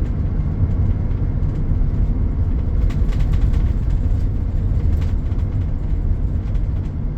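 Steady low rumble of road traffic, with a faint rise in hiss about three to five seconds in.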